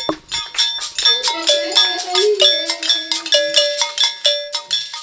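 A voice singing a song in held notes over hand-held iron bells struck with a stick in a quick steady pattern, about four strikes a second, with a shaker rattling along.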